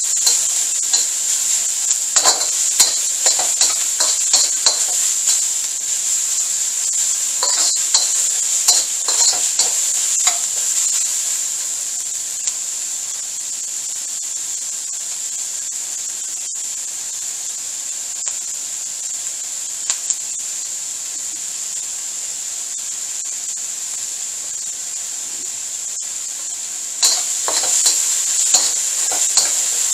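Diced peppers, onion and garlic sizzling in a hot carbon-steel wok, with a metal spatula scraping and clacking against the wok as they are stir-fried. The stirring stops about ten seconds in, leaving only a steady sizzle, and resumes near the end.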